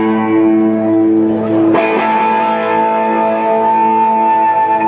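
Guitar playing held, ringing chords at the opening of a roots-rock song, changing chord about two seconds in.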